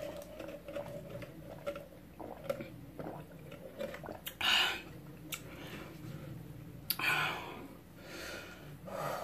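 A woman sipping a drink through a straw, with small mouth clicks and swallows, and two breathy exhales about four and a half and seven seconds in.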